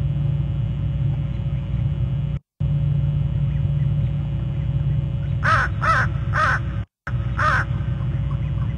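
A bird gives four short harsh calls in quick succession a little past halfway, over a steady low rumble and hum from the outdoor nest-camera microphone. The sound cuts out briefly twice.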